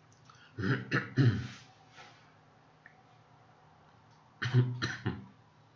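A person coughing: two short fits of about three coughs each, about half a second in and again near the end.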